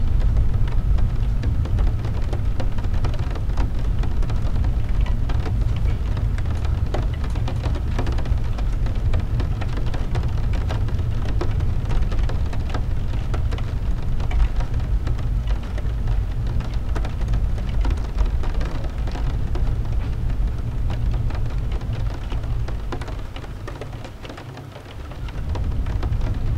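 Heavy rain falling on a car's windshield and body, heard from inside the cabin as a dense patter of separate drop hits over the low, steady rumble of the car driving on a wet road. The rumble drops away briefly near the end and then comes back.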